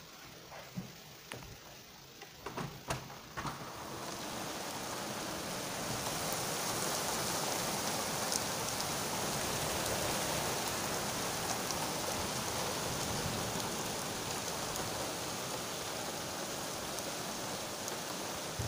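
Heavy downpour in a thunderstorm. A few sharp taps of drops striking a surface come in the first seconds, then the rain swells into a steady, loud hiss about four seconds in.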